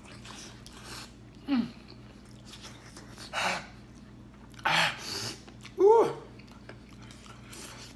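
A man eating a cheese-sauce-covered chicken leg: chewing with mouth noises, two sharp breaths, and short hummed moans of enjoyment, the loudest a rising-then-falling "mmm" about six seconds in.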